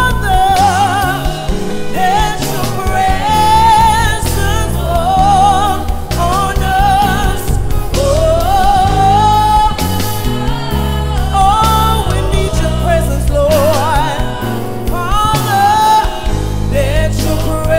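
Live gospel song: a woman singing a melodic line with vibrato into a microphone over instrumental accompaniment with bass and a beat.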